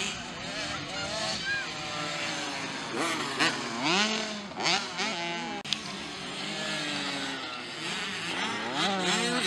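Small youth motocross bikes of the 65cc class revving hard on a dirt track. Several bikes' engine notes rise and fall as the riders open and close the throttle over the jumps.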